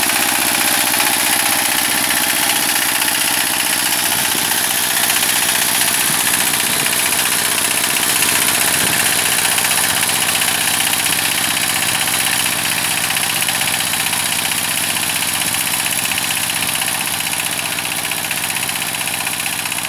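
ZUBR 12 hp walk-behind tractor's single-cylinder diesel engine running steadily under load while its rear rotary tiller churns the soil. It grows a little fainter near the end.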